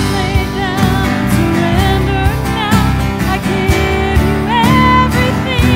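Live worship-band music: a woman singing with vibrato over electric guitar and a steady drum beat.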